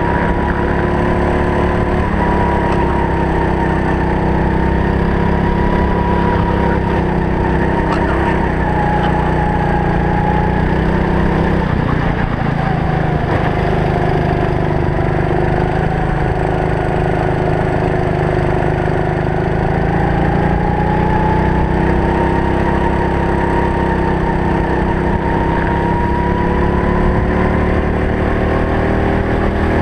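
Go-kart engine running continuously, heard on board from a helmet camera. Its pitch dips for a few seconds about halfway through as the kart slows, then climbs again as it picks up speed.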